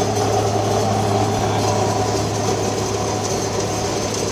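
Industrial hot-air popcorn popping line running: a steady machine hum and whir over a constant low drone.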